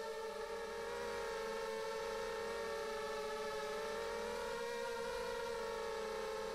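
250-size FPV quadcopter's brushless motors and propellers whining steadily in flight, the pitch wavering slightly up and down with throttle.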